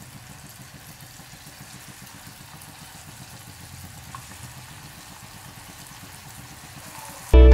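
Marinated chicken pieces deep-frying in hot vegetable oil: a steady hiss of sizzling and bubbling oil. Loud guitar music cuts in just before the end.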